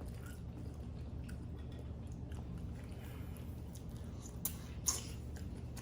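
Faint chewing and mouth sounds of a person eating a seafood boil, with two sharp clicks near the end, over a steady low hum.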